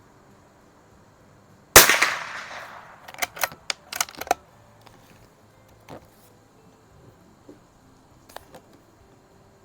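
A single shot from a CZ 452 bolt-action .22 rimfire rifle, ringing out for about a second. About a second later comes a quick run of sharp metallic clicks as the bolt is worked, then a few faint clicks.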